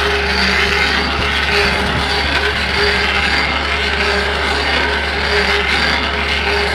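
Mini excavator's diesel engine running steadily under load while its hydraulic Rotop stump drill grinds down into a tree stump, chipping the wood.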